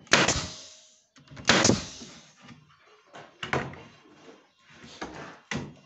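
Pneumatic pin nailer firing pins into cedrinho ceiling boards: five sharp shots, the first two the loudest.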